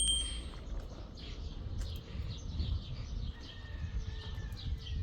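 Small birds chirping, many short calls over a low background rumble; a high metallic ringing tone fades out in the first half second.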